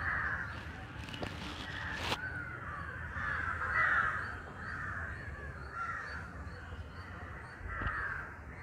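Several crows cawing over and over, the calls overlapping, with a single sharp click about two seconds in.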